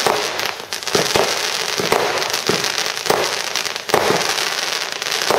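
Aerial fireworks shells bursting in quick succession, a sharp bang every half second to a second, with continuous crackling between the bangs.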